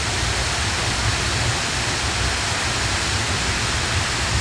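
Steady rushing of a twin waterfall pouring down a rock face into the sea, with a low rumble underneath.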